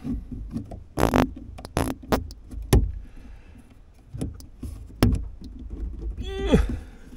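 Sharp clicks and rattles of a toolbox lid's metal latch and release cable being handled. Near the end a short zip that falls in pitch, as a zip tie is pulled tight to hold the shortened cable end in place.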